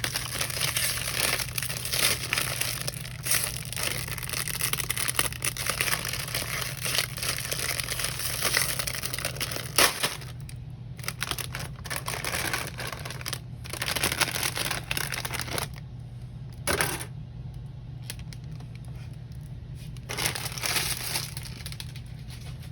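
Thin plastic bag crinkling and rustling as a model-kit bag is opened and the plastic runners inside are handled, with sharp clicks of plastic parts. Busy for the first ten seconds or so, then quieter with short bursts of rustling.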